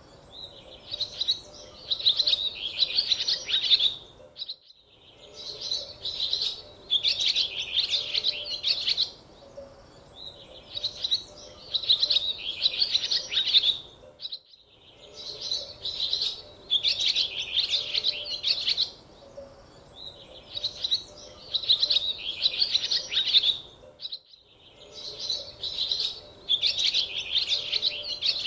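Small birds chirping and twittering in bursts of a second or two with short pauses between. The sound cuts out briefly about every ten seconds and the pattern repeats.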